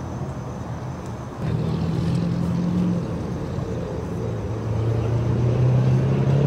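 A motor vehicle engine running with a steady low hum that gets louder about a second and a half in, then carries on at a slightly lower pitch.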